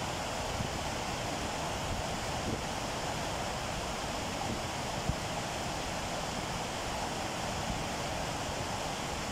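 Steady rush of white water pouring over a low weir in a shallow river: an even, unbroken noise, with a few brief low bumps.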